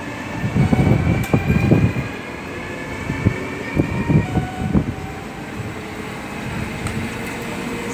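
Electric train running at the station: a steady rumble with faint whining tones that glide slowly in pitch, and a run of low thuds and knocks in the first five seconds.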